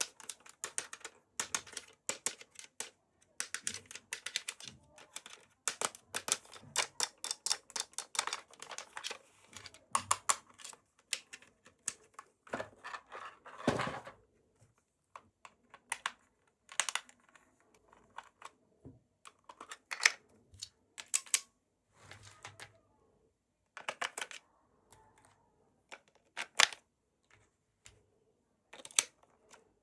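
Hands handling a small toy and its packaging: runs of quick, light clicks and taps, like fingers working plastic or die-cast parts, with one longer scraping rustle about halfway through.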